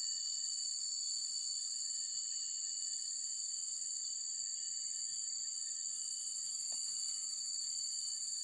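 A steady chorus of insects: a continuous shrill buzz held at two high pitches.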